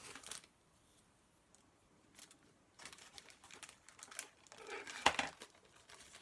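Paper rustling and crinkling as craft paper pieces are handled and sorted, in irregular bursts from about three seconds in, with one sharp tap a little after five seconds in.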